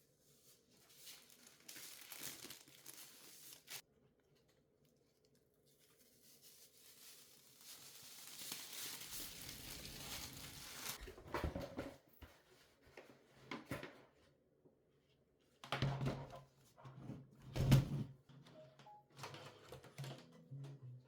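Plastic or paper packaging being crinkled and torn in two stretches of rustling, the second longer and building up, followed by a few knocks of parts being handled, the loudest near the end.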